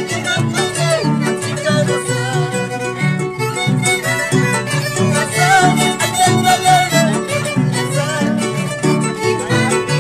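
Andean harp and violin playing a huayno. The harp plucks a steady, bouncing bass line while the violin carries the melody.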